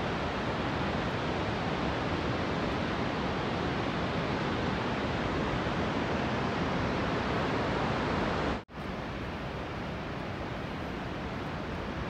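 Steady rushing noise of the Vøringsfossen waterfall. It cuts out for an instant about two-thirds of the way through, then carries on a little quieter.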